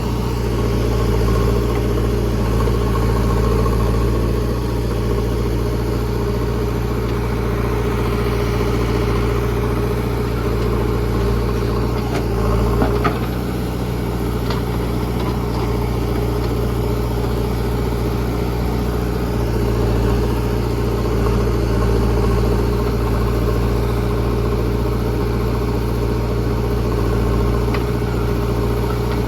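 Diesel engine of a JCB 3DX backhoe loader running steadily, with a few short sharp knocks about twelve to fifteen seconds in.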